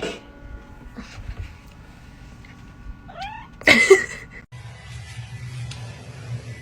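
A cat calls briefly about three seconds in, then gives a loud, harsher yowl just before the four-second mark. After that a steady low hum runs on.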